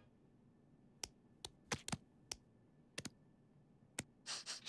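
Cartoon sound effects of a gloved hand picking up and handling a burrito: faint, sparse clicks and taps over a quiet background, about eight in all, then a short soft rustle near the end.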